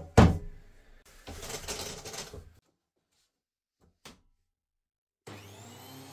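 A DeWalt benchtop thickness planer's motor switching on about five seconds in, its whine climbing in pitch as the cutterhead spins up to speed. Before it, a single loud knock just after the start and a short scraping rustle about a second later.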